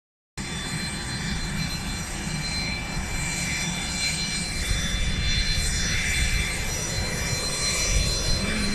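Jet airliner engines running on the ground at the airport: a steady rush of noise with several high whining tones over a low rumble.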